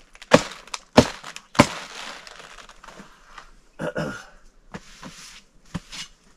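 A large Early Jersey Wakefield cabbage being harvested with a knife: three sharp crunching cracks about half a second apart as the stalk and outer leaves are cut and broken, then softer crunches and rustling of leaves.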